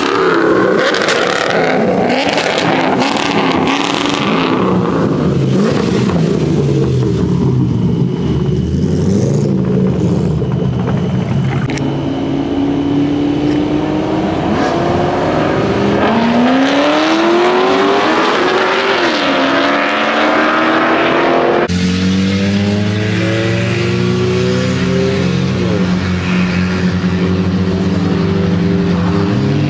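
Car engines revving and accelerating hard, the engine note climbing in pitch and dropping back between runs. About three-quarters of the way through the sound cuts abruptly to an engine running at a steady note, which starts to climb again near the end.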